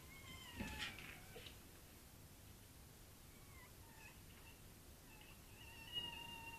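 A cat meowing faintly, several short meows and a longer, steadier one near the end. A couple of soft thuds sound about half a second in.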